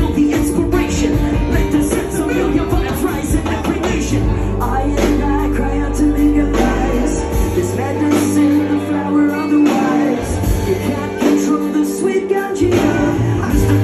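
Live rock band playing, with electric guitars and drums at a steady beat.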